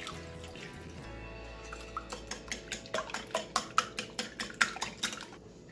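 Wire whisk beating milk into eggs in a glass bowl, its wires clicking against the glass about five times a second for a few seconds, over soft background music.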